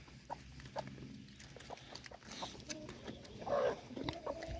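Farm animals feeding, with many short clicks and one louder animal call about three and a half seconds in.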